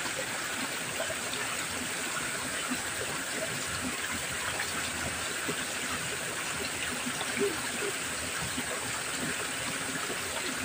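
Steady rush of water spilling over a small rocky cascade into an irrigation channel.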